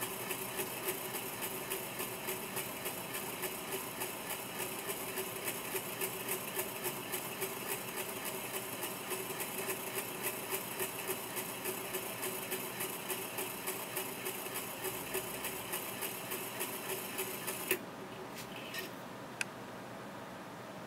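Copper wire of a homopolar motor spinning around a C battery on neodymium magnets, ticking rapidly and evenly where it rubs the magnet stack. The ticking cuts off suddenly near the end as the wire stops, and two single clicks follow as it settles.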